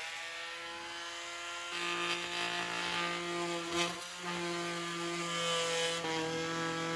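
Corded oscillating multi-tool running at a steady pitch as its plunge blade cuts into drywall. About two seconds in, a lower tone and a rasping hiss join as the blade bites into the wall. There is a brief dip near the middle.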